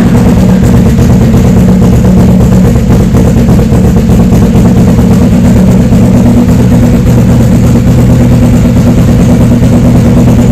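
Suzuki GS500's air-cooled parallel-twin engine idling steadily after a cold start, loud through an open-ended SC Project aftermarket exhaust.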